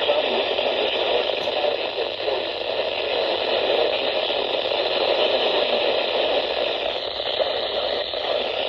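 Weather radio receiver giving out steady static hiss, with no voice or alert tones coming through: a weak, poorly received signal.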